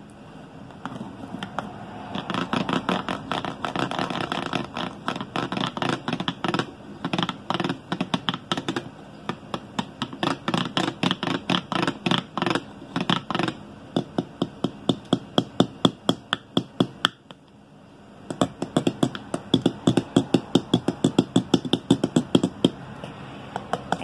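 A plastic drink bottle tapped and scraped to make sounds: a dense run of scratchy taps, then sharp separate taps about four a second, a brief pause about three-quarters through, and another run of taps.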